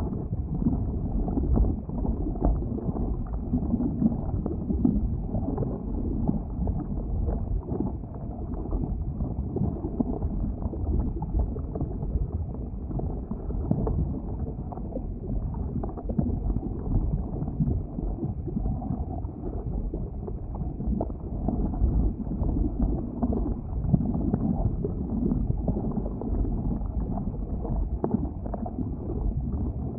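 Boiling lava at an erupting volcanic vent: a steady low rumble with small swells and no high hiss.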